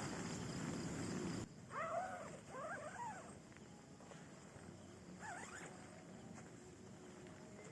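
Steady wind rush that cuts off abruptly about a second and a half in. A few short rising-and-falling animal calls follow close together, then one more a couple of seconds later.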